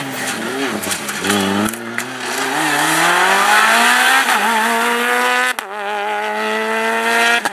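Volkswagen Polo rally car engine accelerating hard past. The engine pitch climbs steadily through the revs, breaks off sharply about two-thirds through, then climbs again.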